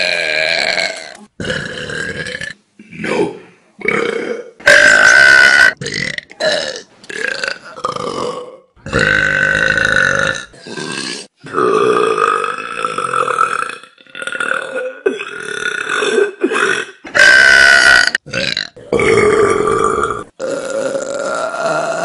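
A string of loud burps from several young women, one after another with short breaks between. Most are long and drawn out, a second or more each, with a few short ones between.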